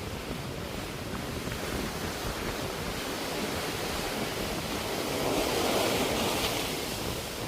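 Sea waves washing onto the shore, a steady surf wash that swells as a wave breaks near the end, with some wind on the microphone.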